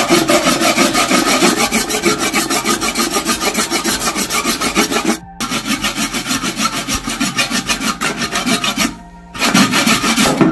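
Hand saw cutting through a buffalo leg bone in quick, even back-and-forth strokes, pausing briefly about five seconds in and again near nine seconds.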